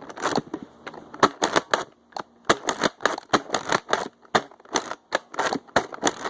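Nerf foam-dart blasters fired over and over, about twenty sharp pops in quick, uneven succession, as the last darts are emptied from the blasters.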